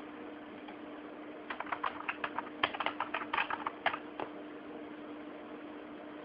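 A quick, uneven run of light clicks lasting about three seconds, over a faint steady hum.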